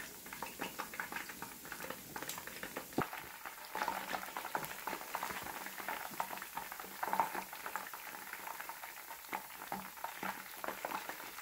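Battered king oyster mushroom strips deep-frying in a pan of oil: a steady, fairly faint crackling sizzle of many small pops, with occasional sharper clicks.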